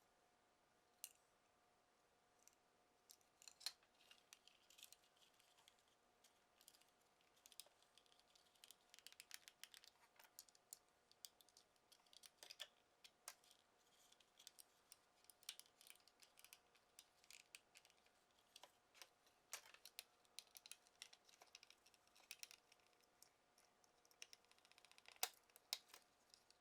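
Faint, irregular small clicks, taps and light scrapes of hand tools on the plastic of a car side-mirror housing as it is taken apart.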